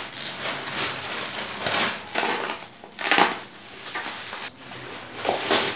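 Plastic courier mailer bag and bubble wrap crinkling and rustling as a parcel is cut open and handled. The noise comes in uneven surges, loudest about a second and a half in, about three seconds in, and near the end.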